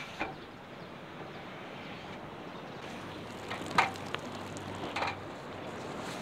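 Water from a wrung-out cloth splattering onto dry grass and soil, twice in the second half, over a steady wash of sea waves and wind.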